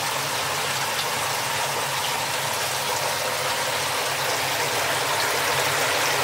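Steady rush and splash of water circulating in a koi tank, over a low, steady hum.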